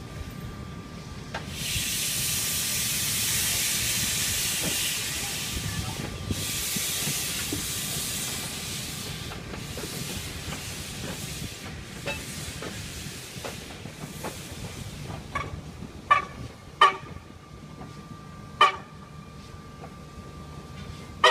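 Steam locomotive starting away with its cylinder drain cocks open: a loud hiss of steam for several seconds, easing off as the engine moves away. Near the end come three short, high toots.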